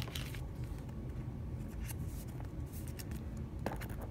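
A Pokémon trading card being handled and stood upright against a stack of booster packs: faint rustles and a light tap near the end, over a low steady room hum.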